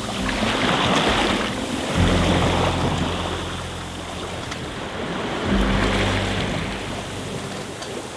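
Sea water washing and rushing past a sailboat's hull, swelling and easing every couple of seconds, under background music with low sustained notes that change every few seconds.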